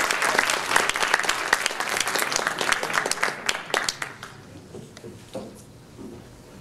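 Audience applauding: dense clapping that thins to a few last claps and dies away about four seconds in.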